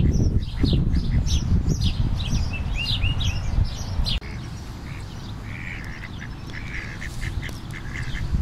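Small birds chirping rapidly over a heavy low rumble. About four seconds in the sound cuts to a quieter scene, where waterfowl give a run of short repeated calls.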